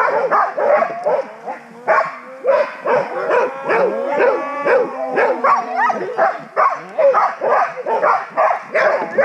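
Several harnessed dogs barking and yipping in quick, overlapping calls throughout, with long drawn-out whining calls in the middle.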